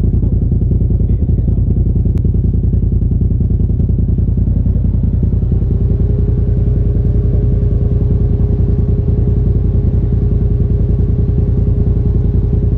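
A Polaris RZR Turbo side-by-side's engine idling steadily with an even, rapid low pulse. A faint steady tone joins about halfway through.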